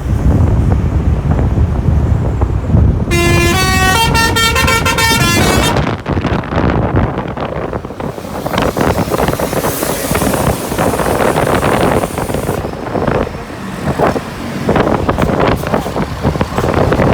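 Telolet musical horn (a Basuri multi-tone air horn) on a Budiman intercity bus playing a short tune of quick stepping notes for about three seconds, starting about three seconds in. Engine rumble and wind noise on the microphone run under and after it.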